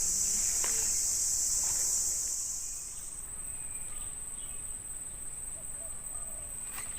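Insect chorus droning in a high steady band, which drops away about three seconds in, leaving a thin, steady high whine.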